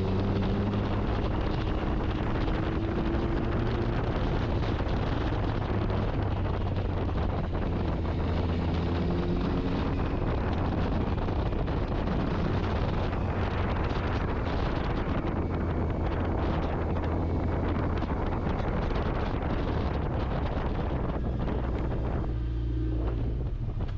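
Motorcycle engine running under way, its pitch drifting a little with speed, under steady wind rush on the microphone. The wind noise eases near the end.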